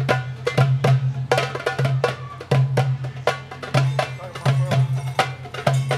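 Hand drum, a goblet drum (doumbek) held under the arm, played solo in a quick, steady rhythm: deep low strokes mixed with sharp, dry slaps on the rim.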